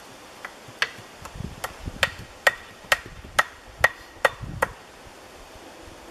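Hand hammer striking a metal tool on a wooden sawhorse: about ten sharp blows, roughly two a second, each with a short metallic ring. There are dull low thuds between some of the blows.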